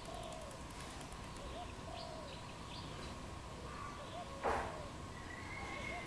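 Spotted dove cooing: a short rising note followed by a longer wavering coo, the phrase repeated about every one and a half seconds. A sharp knock about four and a half seconds in is the loudest sound, and faint high chirps from small birds come around the middle.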